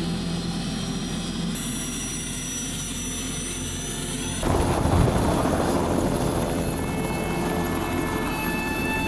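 Light helicopter with a two-bladed main rotor running, its blades chopping steadily. About halfway through, the sound gets louder and rougher.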